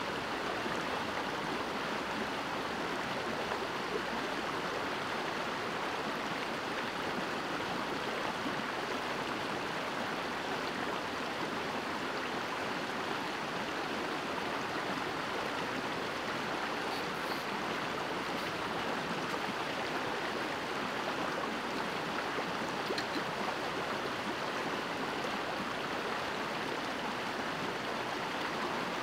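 A small rocky stream flowing over stones and shallow riffles: a steady rush of water with no breaks.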